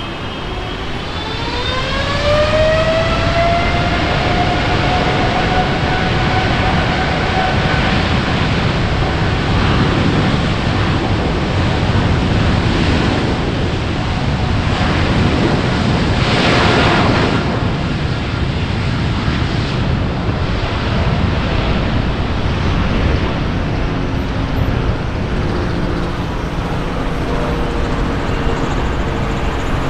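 Boeing 787-8's GEnx turbofan engines spooling up to takeoff thrust: a rising whine over the first two seconds that levels off into steady, loud jet engine noise through the takeoff roll.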